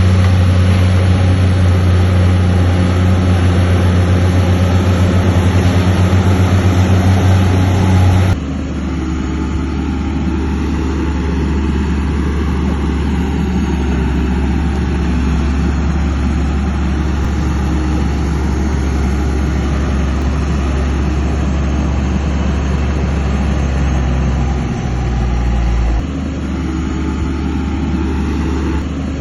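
Heavy diesel engine of earthmoving machinery running steadily with a deep drone. The engine note changes abruptly about eight seconds in and again near the end.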